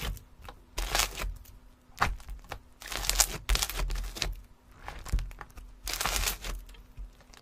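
Crinkling and crackling noises in a string of short bursts with quieter gaps between them.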